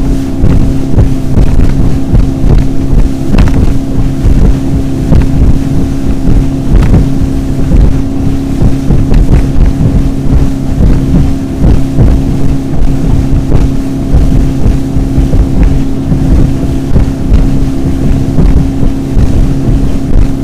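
Motorboat engine running steadily at speed as the boat crosses choppy sea, with wind buffeting the microphone and a few thumps as the hull hits the chop.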